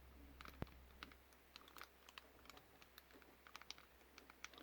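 Faint, irregular small metallic clicks of a key and lock core being worked in a Medeco padlock while trying to draw the core out.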